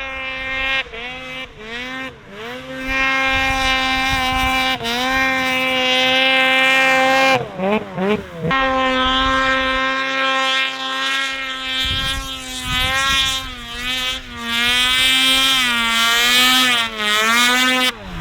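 Snowmobile engine running at high revs while riding, holding a steady pitch. The pitch dips and climbs back several times as the throttle is eased and reopened, and wavers up and down for about a second near the middle.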